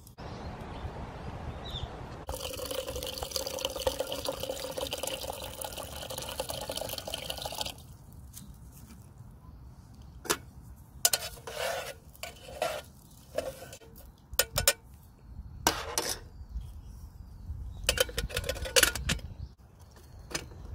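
Water pours into a stainless steel pot for about five seconds and stops sharply. Then rice is swished and rattled by hand in the pot, with scattered clinks and knocks against the metal.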